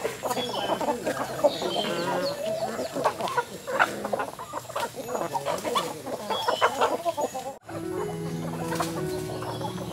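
A flock of free-range chickens clucking, many short calls overlapping. Near the end the sound cuts over to music with steady held notes.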